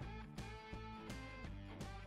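Instrumental background music with guitar and a steady beat.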